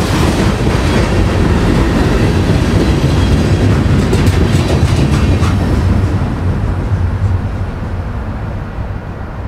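Norfolk Southern H70 freight train's cars rolling past on the rails, a loud rumble with sharp clicks of wheels over the track. It fades steadily from about six seconds in as the end of the train passes and draws away.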